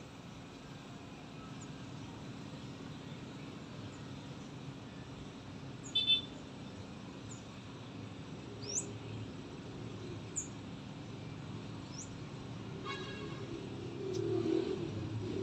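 Steady low city traffic hum with a few short, rising bird chirps and a brief high toot about six seconds in. A vehicle grows louder near the end.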